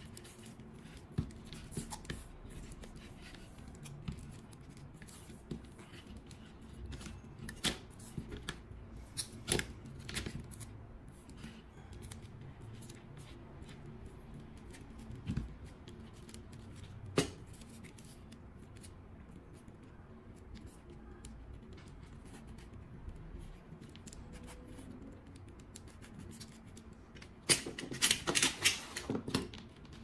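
Hand-tool work on a laptop charging cable: scattered sharp clicks, with a quick cluster of clicks near the end.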